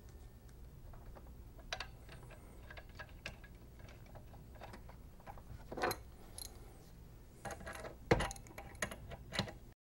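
Small clicks and taps of hand work as a new pressure relief valve is handled and screwed by hand onto the head of an oxygen concentrator's compressor, with louder knocks about six seconds in and about eight seconds in. The sound cuts off just before the end.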